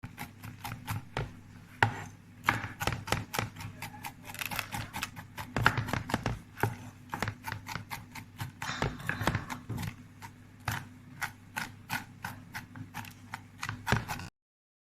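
Knife chopping on a cutting board: an irregular run of sharp knocks, several a second, over a low steady hum. It cuts off near the end.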